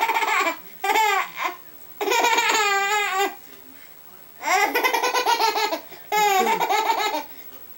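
Baby laughing hard in five high-pitched bouts, each about a second long, with short pauses between.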